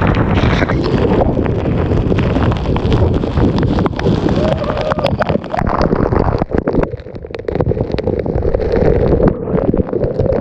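Heavy wind buffeting the microphone: a loud, irregular rumbling noise with crackles, dipping briefly about seven seconds in.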